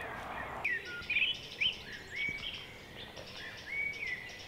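Songbirds singing: a string of short chirps and whistled notes, some sliding down in pitch and some held level, over faint outdoor background. A brief rustling noise stops under a second in.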